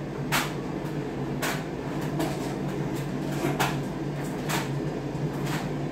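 Half a dozen light clicks and taps at irregular intervals, the sound of small objects being handled and set down on a table, over a steady low hum.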